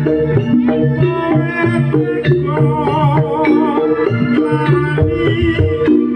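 Live jaranan campursari music led by kendang hand drums playing a busy rhythm over a repeating melodic pattern.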